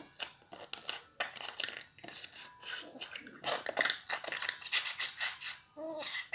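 Budgerigar chattering: a rapid run of scratchy clicks and short squeaks, busiest midway, with a brief pitched call near the end.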